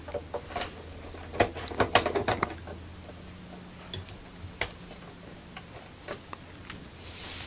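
Light clicks and scrapes of a screwdriver turning screws out of a small plastic TV cabinet, densest in the first couple of seconds. Sparser single clicks follow as the case is handled, over a faint steady low hum.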